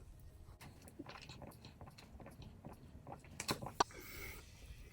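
A person drinking: faint swallowing and mouth sounds with scattered small clicks, and two sharper clicks about three and a half seconds in.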